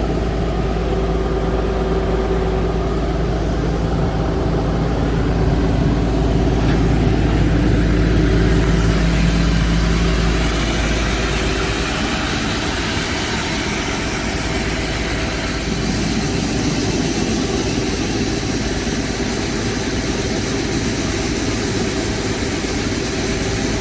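Excavator's diesel engine running steadily while its hydraulic automatic core drill attachment bores into rock. About eleven seconds in, the deep low rumble drops away and a rougher, higher noise takes over.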